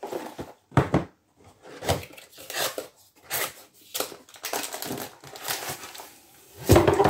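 A long cardboard kit box being handled and opened, with rustling, crinkling and scraping as the plastic-wrapped rolled canvas slides out of its end. The loudest rustle comes near the end.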